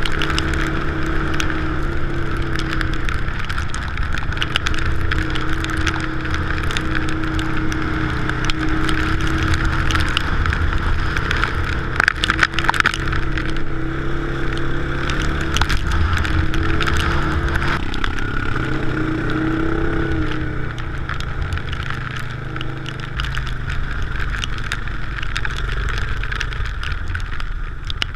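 Off-road vehicle's single-cylinder engine running while driving over rough ground, its pitch shifting with the throttle, with a few sharp knocks and jolts about halfway through.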